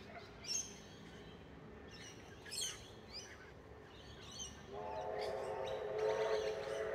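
Birds chirping a few times, then from about five seconds in a distant train sounds a long, steady whistle of several tones that grows a little louder.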